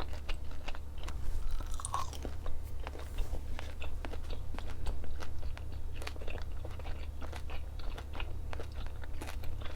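A person biting and chewing crunchy food: a steady run of irregular crunches and crackles, over a constant low hum.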